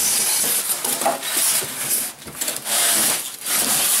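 Foam packing blocks and a creeper's frame scraping and rubbing against a cardboard box as the creeper is slid out, in a few drawn-out scrapes.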